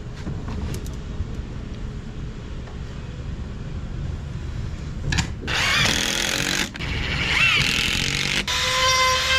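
Makita cordless drill boring into clamped hardwood in two bursts of a couple of seconds each, its motor pitch wavering under load. Near the end a steady, even whine from another power tool takes over.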